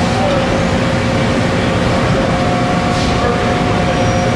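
Steady drone of factory machinery with a held hum; a second, higher tone joins about halfway through.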